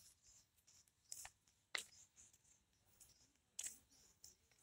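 Near silence, broken by three or four faint short clicks or scuffs.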